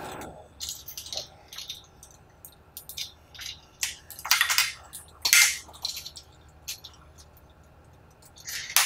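Metal hooks of adjustable rope ratchet hangers clinking and rattling as they are handled and clipped onto a grow light's hanger loops: a string of irregular short clicks, the loudest about four and a half and five and a half seconds in and again near the end.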